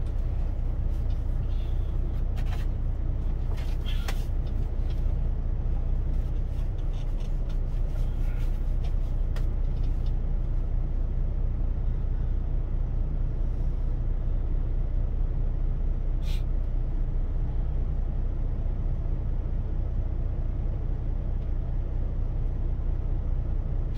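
Kenworth T680 semi truck's diesel engine idling, a steady low rumble heard from inside the cab. A few light clicks come in the first ten seconds, and one more about sixteen seconds in.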